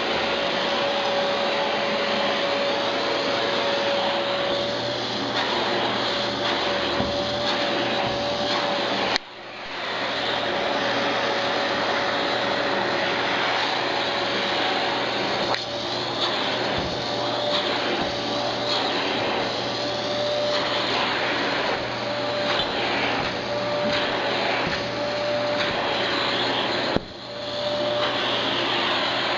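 Electrolux Ergolite vacuum cleaner running steadily, a rushing air noise with a steady whine. Twice the sound drops abruptly and builds back up within about a second.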